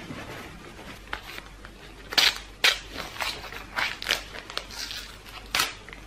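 Soft rustling of bedding, then a run of sharp, crisp crackling snips as scissors cut the fabric tag off a pillow.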